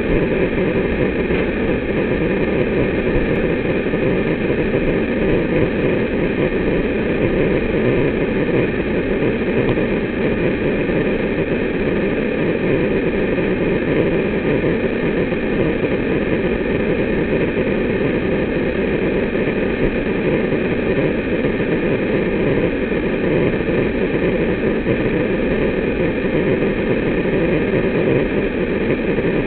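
Tubular motor of a full-cassette motorised awning running steadily as it winds the fabric out, a continuous even drone with a faint steady whine above it.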